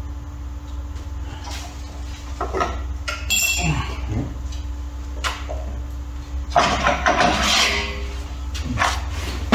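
Clanks, knocks and scrapes of a steel sheet being worked free of a manual sheet-metal brake, with a brief metallic ring about three seconds in and a longer scrape from about six and a half to eight seconds, over a steady low hum.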